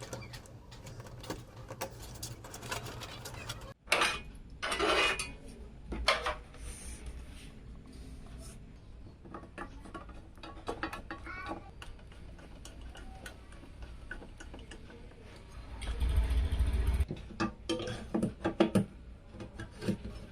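Hands handling computer parts and a PC case: light clicks, taps and small metallic clinks, with bursts of rustling about four seconds in and a heavier bump and rumble of handling at about sixteen seconds.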